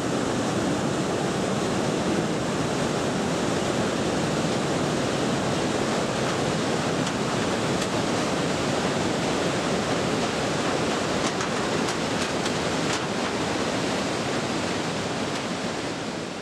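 Roar of a huge waterfall, Iguazú Falls: a steady, loud rush of falling water and spray, fading out near the end.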